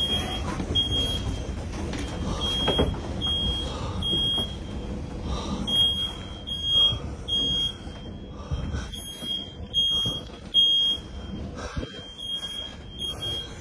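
Smoke alarm beeping over and over in short, high-pitched pulses, over a low rush of storm wind that fades after about eight seconds.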